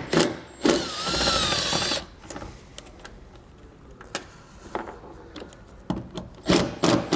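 Cordless power driver with a T25 Torx bit on a long extension, spinning out a taillight mounting screw in one whining run of about a second, starting about a second in. Scattered light clicks and knocks follow, with a few short louder bursts near the end.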